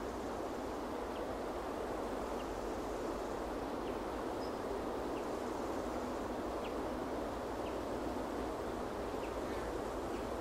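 Steady outdoor rushing noise of wind with distant aircraft. Faint short chirps sound about once every second or so.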